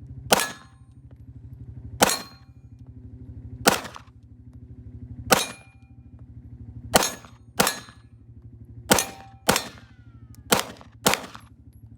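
Handgun fired about ten times in a timed course of fire. The first shots come evenly, roughly one every second and a half, and the later ones come in quicker pairs. A steady low drone runs underneath.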